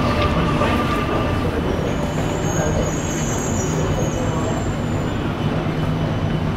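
Alstom Metropolis C751A metro train running with a steady low rumble. A high, thin squeal comes in about two seconds in and fades out around four and a half seconds.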